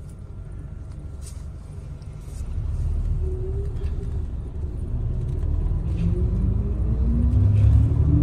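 Bus engine and road rumble heard from inside the cabin, growing louder about two and a half seconds in. Toward the end the engine's pitch climbs in steps as the bus accelerates.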